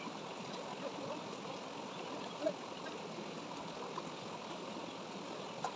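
River water rushing steadily over rocks, with a couple of faint clicks.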